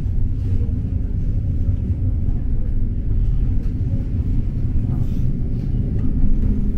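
Steady low rumble of a tram in motion, heard from inside the passenger car.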